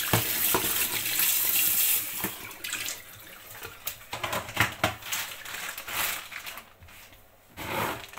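A steady rushing hiss of water for about the first two seconds, which then stops, followed by scattered light clicks and knocks of things being handled on a kitchen counter.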